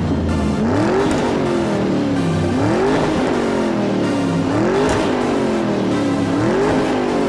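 Background electronic music with a synth that slides sharply up in pitch and slowly back down about every two seconds, much like an engine revving.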